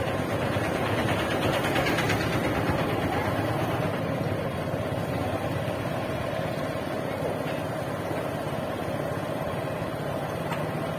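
Motorcycle engine running steadily at low road speed, heard from the rider's seat.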